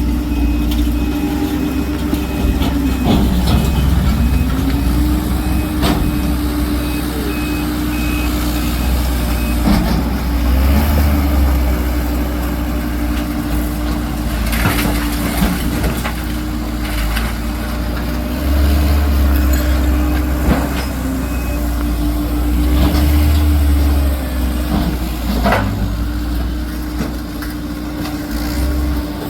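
Heavy diesel truck or work machine running steadily, its engine note dipping briefly about three seconds in as if under load. A reversing alarm beeps through the first ten seconds or so, with occasional knocks and clatter.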